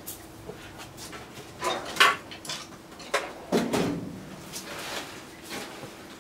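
Rummaging for a screwdriver: irregular clatters and knocks of tools and drawer being moved about, loudest about two seconds in and again about three and a half seconds in.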